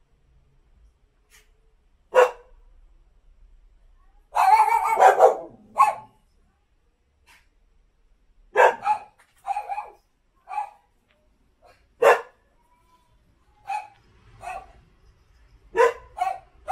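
A dog barking in short, sharp barks, about a dozen in irregular groups, with a longer rough run of barking about four seconds in.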